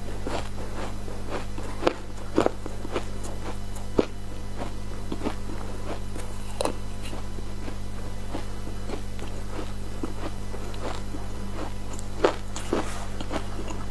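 Ice being bitten and chewed close to the microphone: a run of irregular sharp crunches and crackles, a few of them louder bites, over a steady low hum.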